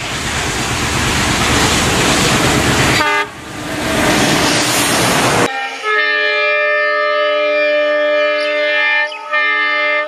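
Loud, heavy rumble of an approaching Indian Railways diesel locomotive and train. About five and a half seconds in it cuts off abruptly, and a diesel locomotive's multi-tone air horn sounds a long, steady chord, broken briefly twice.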